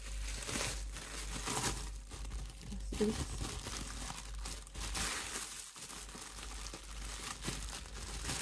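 Plastic packaging film crinkling and rustling in irregular bursts as a silicone mould is unwrapped by hand.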